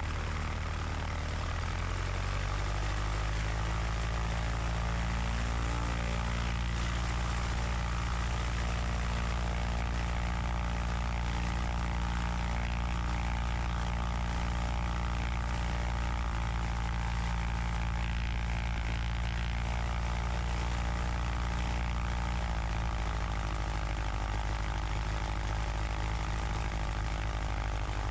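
Cessna 150's Continental O-200 four-cylinder engine and propeller, heard from inside the cabin during a pre-takeoff run-up. The engine is throttled up over the first few seconds, holds a steady higher note that shifts briefly around the middle, then is throttled back near the end.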